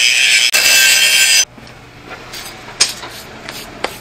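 Handheld angle grinder grinding a steel hitch bracket: a loud, steady grinding that stops abruptly about a second and a half in. A few faint knocks follow.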